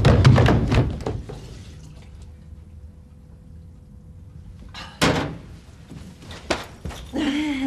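A loud clattering burst in the first second, then quiet, then a few separate sharp knocks and thuds from about five seconds in, with a short falling vocal sound near the end.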